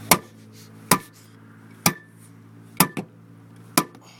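Five sharp blows about a second apart, one followed by a quick smaller second knock, struck against a spare tire that is seized in its trunk mount to break it loose.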